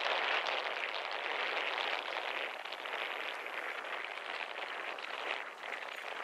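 Strong wind rushing over the microphone, a steady noise with no pitch to it that eases a little after about two seconds.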